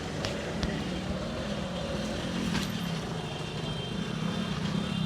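Road traffic: a vehicle engine running with a low, steady hum under a constant wash of traffic noise, with a few sharp clicks in the first three seconds.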